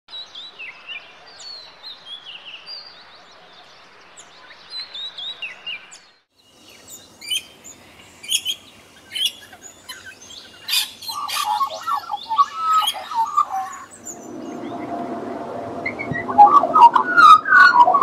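Birdsong from three spliced clips. First come high whistled phrases like an oriental magpie-robin's song; after a short break about six seconds in, sharp chirps and clicks follow. In the last few seconds there is lower, louder warbling of an Australian magpie.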